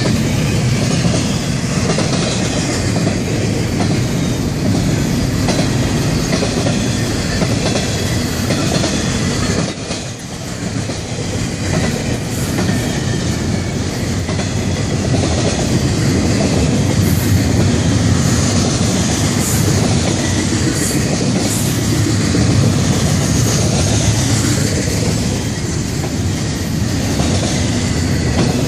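Double-stack container well cars of a freight train rolling past at close range: a steady, loud rumble and clatter of steel wheels on the rails, dipping briefly about ten seconds in.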